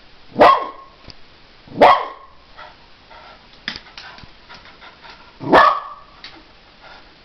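A dog barking three short, loud barks, spaced a second or more apart, with light clicks and taps in between. The barks are those of a frustrated dog that cannot get at the tennis balls in a wire basket.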